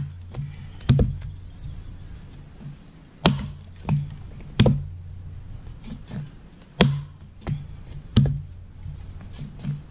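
Axe blows biting into a wooden log, a heavy chop every second or two with lighter knocks in between, about five loud strikes in all.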